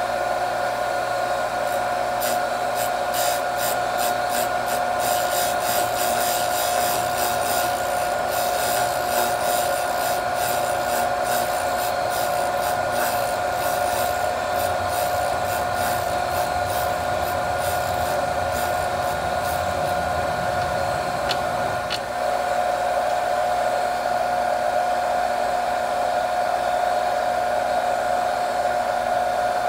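Bench grinder running with a steady hum while a three-flute drill bit, held in a drill-grinding fixture, is ground against the wheel. A rapid, gritty scraping of steel on the wheel is heard through roughly the first two-thirds, and the sound dips briefly a little after that.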